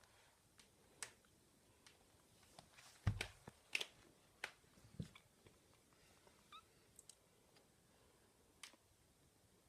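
Kittens moving about: scattered light clicks and taps, a dull thump about three seconds in, and a brief high kitten mew past the middle.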